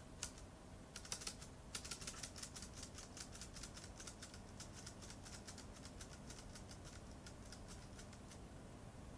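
Faint keyboard key clicks: a few single presses, then a quick run of repeated presses for about five seconds that thins out near the end. The repeated presses step through the kanji conversion candidates while typing Japanese.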